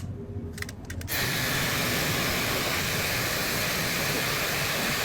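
Steady, even hiss like white noise, starting abruptly about a second in.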